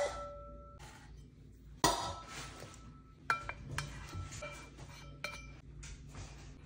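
Stainless-steel dog bowls being knocked as food is set and spooned into them: a handful of clinks, each leaving a short metallic ring, one about two seconds in and several more a little later.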